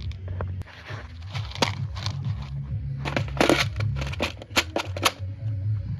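Irregular clatter of hand tools and parts being handled during bike assembly: a run of sharp knocks and clicks, densest about halfway through, over a steady low hum.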